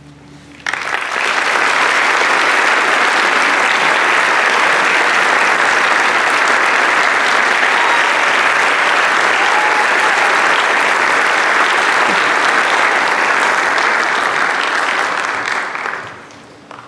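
Audience applauding, starting suddenly about a second in, holding steady, and dying away near the end.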